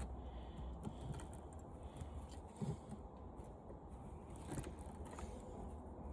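Faint metallic clicks and scrapes of a blade being worked over a window air conditioner's condenser coil where the first cut did not go through, over a low steady hum.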